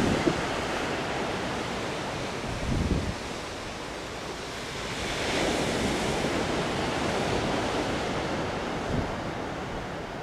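Surf washing on a beach, with wind buffeting the microphone in low gusts near the start and about three seconds in; the wash swells louder around the middle.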